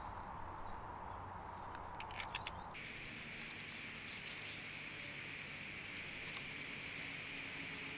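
Outdoor ambience: small birds chirping now and then over a faint steady hiss, which shifts higher in pitch about three seconds in.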